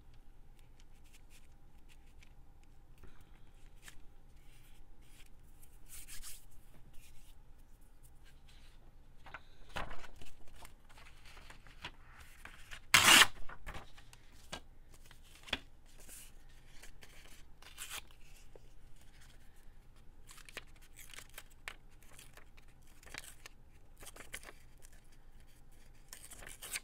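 Paper being handled and torn for collage: scattered rustles and short rips, the loudest a brief sharp tear about 13 seconds in.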